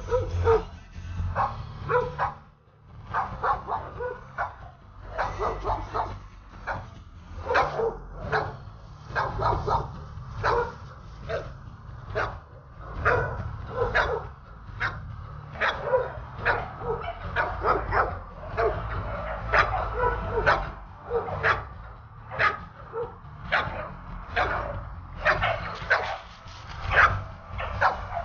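Recorded puppies crying, played from a phone app through its small speaker: a continuous run of short whimpering and yelping cries, a few each second, used to lure a nursing mother dog to her litter.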